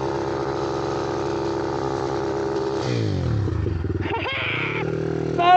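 Motorcycle engine running at a steady speed, then the revs fall away about three seconds in as the throttle closes. A brief voice cuts in about four seconds in.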